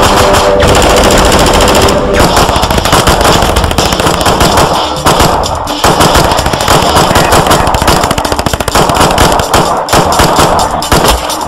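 Film shootout gunfire: rapid, dense pistol shots crowding one on another, with a music score underneath.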